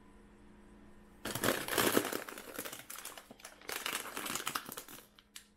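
Crinkling of a plastic snack bag of Reese's Popcorn being pulled from a cabinet shelf packed with chip bags. The crinkling starts about a second in and comes in two long spells.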